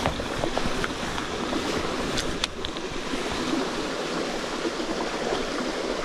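Water of a shallow forest stream running steadily over the shallows, with a few light clicks about one and two and a half seconds in.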